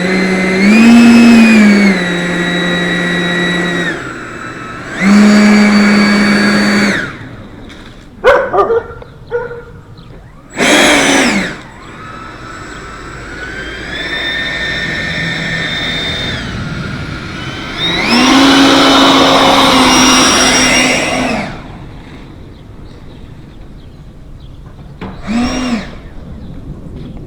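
A model jet's electric motor whining in a run of throttle bursts: the pitch rises, holds steady for a second or few, then cuts off, with a few quick short blips between the longer runs.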